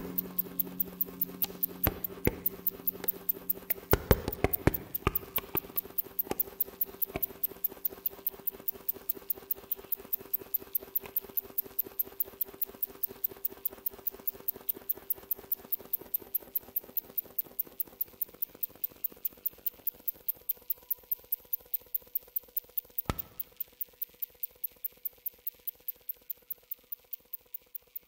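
Ambient electronic music near its close: sustained drone tones fade away beneath a steady ticking pulse of clicks, about four a second. There is one louder knock about five seconds before the end.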